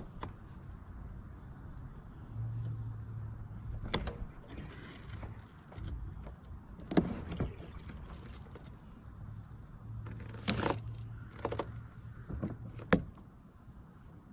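Steady high-pitched insect chorus, with four sharp knocks spaced a few seconds apart.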